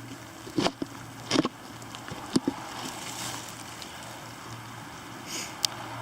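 Steady rain hiss, with a handful of short sharp ticks and rustles scattered through the first half and another one or two near the end.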